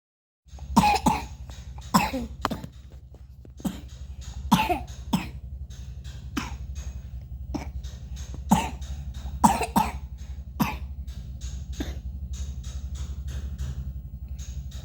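A young child coughing repeatedly: about a dozen short coughs at irregular intervals, some in quick pairs, over a low steady hum.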